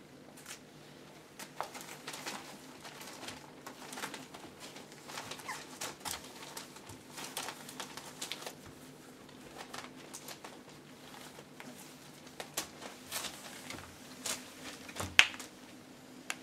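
Young puppies scrabbling and shuffling about a whelping box, their paws rustling and crinkling the newspaper and scratching the fleece bedding in many short irregular scrapes, with a brief squeak near the end.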